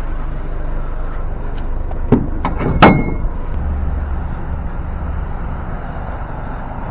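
A vehicle engine running steadily, with two sharp metal clanks about two and three seconds in, the second one ringing, as pieces of scrap metal are handled.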